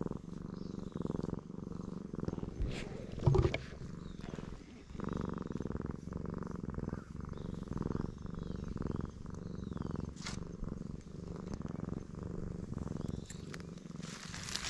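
A black stray cat purring loudly and steadily as it is stroked, a fast, even rumble. A brief thump breaks in about three seconds in.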